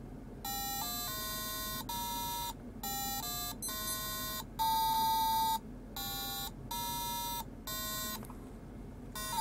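Laser harp kit's small speaker playing a simple run of beeping electronic tones, about a dozen notes at changing pitches with short gaps, as a finger breaks the laser beams. The longest and loudest note comes about halfway through.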